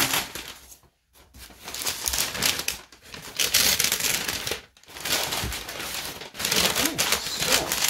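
Brown kraft wrapping paper being pulled open and unfolded by hands, crinkling and rustling in irregular crackles, with two brief pauses, about a second in and just before the fifth second.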